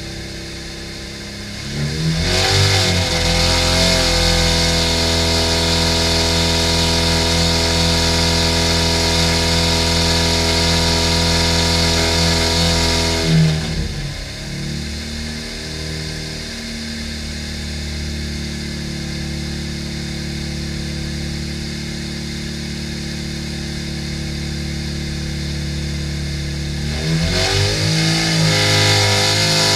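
Rotrex-supercharged 1293cc A-Series four-cylinder engine running on an engine dyno at held speeds, 2500 rpm and then 3000 rpm. It gets louder about two seconds in, drops back to a lighter note about halfway through, and loads up loud again near the end.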